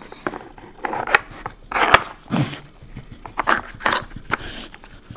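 A Samoyed snuffling and nosing around a plastic Nina Ottosson Hide N' Slide dog puzzle as it searches for leftover treats. Irregular short sniffs and rustles are mixed with clicks and knocks of the plastic pieces, and one sharp click comes about two seconds in.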